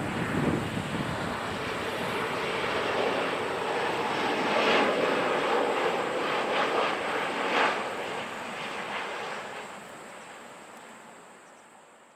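Jet engine noise of a Boeing 737-800 airliner on landing, a broad rushing sound that swells to its loudest midway and then fades away near the end.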